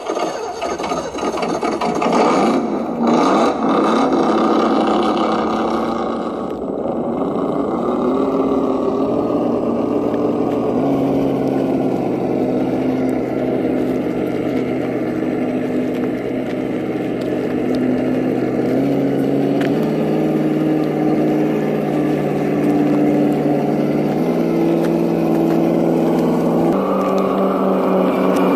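ESS-One engine sound simulator in an Axial SCX10 II RC crawler playing a synthetic truck engine through its speaker: a revving burst for the first several seconds, then a steady engine note that steps up in pitch several times as the throttle is opened further.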